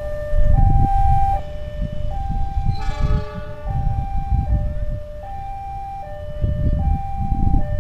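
Railway level-crossing warning alarm sounding its two-tone signal, a higher and a lower tone alternating about every three-quarters of a second, warning that a train is approaching. Low rumbling noise lies underneath.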